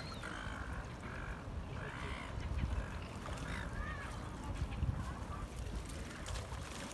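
A flock of water birds calling: short harsh squawks about once a second, over a steady low rumble.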